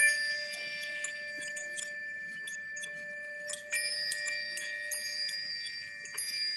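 Chime-like metallic ringing, several tones held at once and dying away slowly. A strike at the very start is the loudest, with fresh strikes about four seconds in and near the end.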